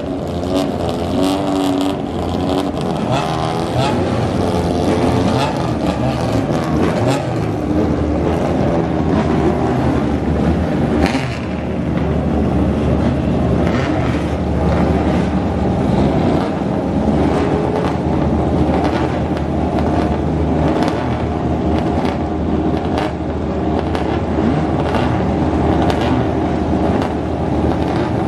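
Racing car engines running hard, several at once, their pitch rising and falling as the cars accelerate and pass.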